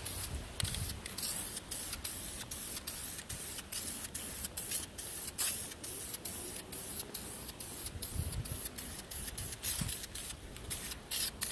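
Aerosol spray-paint can spraying paint onto an engine rocker cover in many short hissing squirts, over and over.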